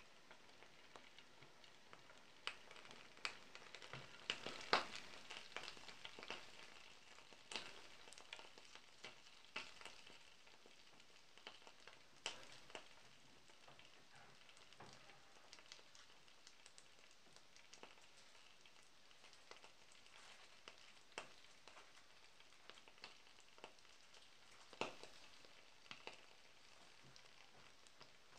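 Faint sizzling with irregular spitting pops from a block of butter melting and bubbling in hot fat in a frying pan. The pops come thickest over the first several seconds, then more sparsely.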